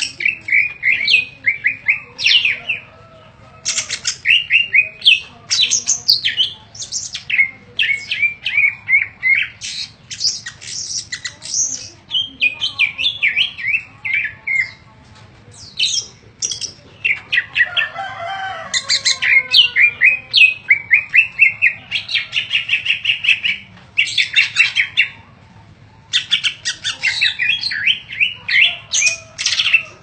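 Cucak ijo (greater green leafbird) singing a long, varied song of rapid repeated chirps and trills, packed with imitated calls of other birds, with a few short pauses between phrases.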